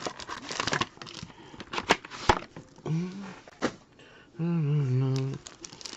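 Trading-card boxes and packs being handled on a table: scattered clicks, taps and light rustling, with one sharper click about two seconds in. A man's wordless voice sounds briefly twice, the second time about a second long.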